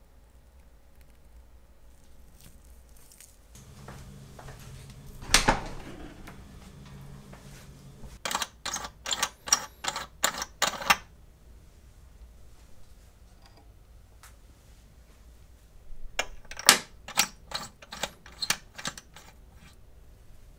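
Sharp mechanical clicks in two quick runs of about ten each, roughly four a second, from a hand-held tool being worked on a homemade bench rig. A single louder click comes before the first run, over a faint low hum.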